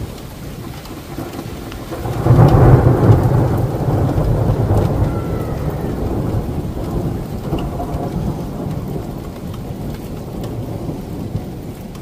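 A long roll of thunder that swells about two seconds in and slowly rumbles away, over rain falling on the street.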